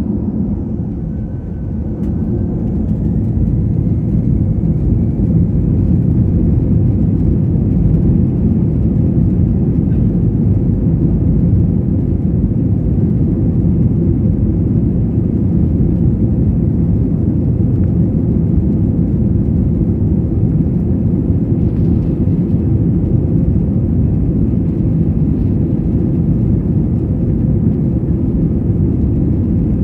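Airbus A320-200's jet engines heard from inside the cabin, spooling up to take-off power: a faint rising whine and a swelling rumble over the first few seconds, then a steady loud rumble through the take-off roll.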